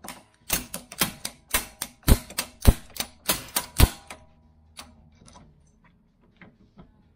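About a dozen sharp metal-on-metal taps, roughly three a second, knocking the Jeep's rear lower shock bolt out of its mount. They stop about four seconds in, followed by a few faint clicks and scrapes as the bolt is worked free.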